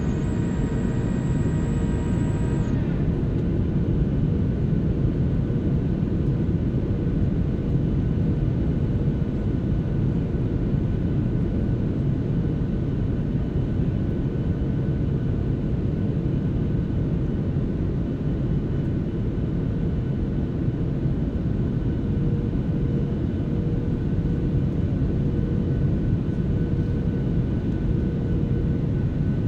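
Steady low rumble inside a Boeing 737-700's cabin on approach to landing, heard from a seat over the wing: CFM56 engine and airflow noise with a faint steady hum. A whine of several tones stops about three seconds in.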